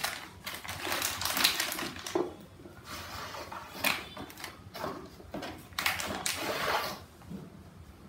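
Cardboard pieces and a plastic packet being taken out of a craft kit box and handled on a table: irregular rustling, sliding and crinkling with a few light knocks.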